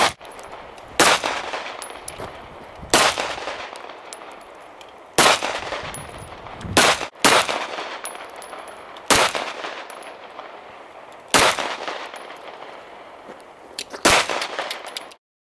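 Semi-automatic pistol fired in single shots at a slow, uneven pace, about nine shots, including one quick pair near the middle; each report rings out with an echo trailing after it.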